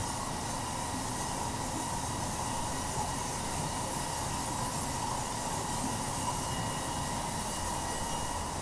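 Diamond wire saw running steadily through a granite boulder: an even hiss with a faint, level high-pitched whine.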